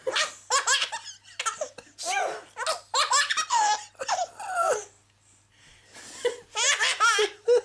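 A baby laughing in repeated short bursts. There is a pause of about a second a little past the middle, then the laughing starts again.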